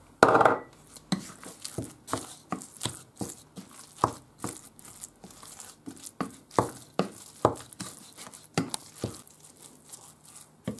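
Wooden spoon stirring minced beef and breadcrumbs in a glass bowl: irregular knocks and scrapes of the spoon against the glass, two or three a second, with a louder knock right at the start.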